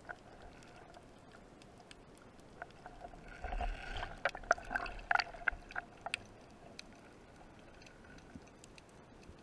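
Underwater ambience picked up by a diver's camera along a rocky reef: scattered sharp clicks and crackles that cluster between about three and six seconds in, over a faint steady hum, with a brief low rumble about three and a half seconds in.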